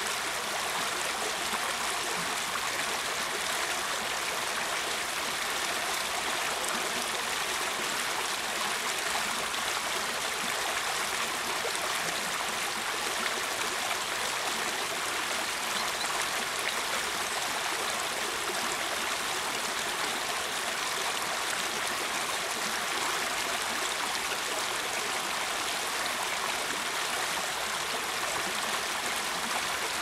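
Shallow rocky stream running over stones in small riffles: a steady, even rush of water, more splash than rumble, with no breaks.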